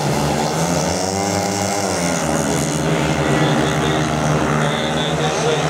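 Four speedway motorcycles' single-cylinder engines revving hard and pulling away from the start, their pitch rising and falling about a second in.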